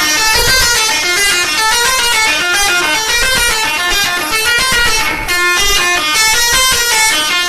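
Indonesian bus's 'telolet' multi-tone musical horn playing a tune, loud and note after note in quick steps.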